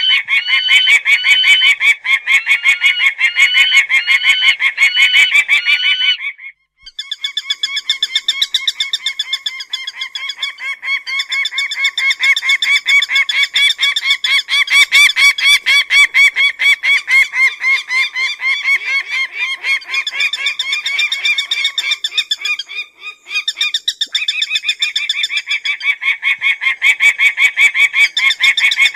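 Peregrine falcon (shaheen) calling in a long run of rapid, evenly repeated calls, broken by two short pauses, one about a quarter of the way through and one about three quarters of the way through.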